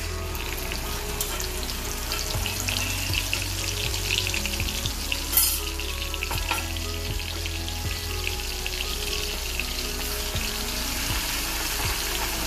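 Crushed green chilli and garlic sizzling and crackling as they fry in hot ghee with cumin seeds in a metal kadhai, stirred with a steel ladle. One sharp knock about five seconds in.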